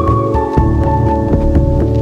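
Background music: a slow high melody in long held notes that step down about half a second in, over a low pulsing accompaniment.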